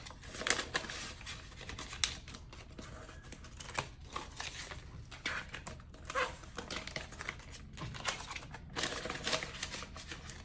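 Paper banknotes and clear vinyl binder pouches rustling and crinkling in an irregular run of short handling sounds as bills are counted and slid into the pouches.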